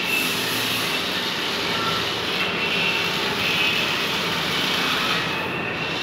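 Small toy remote-control car running across carpet, its little electric motor and gears whirring steadily.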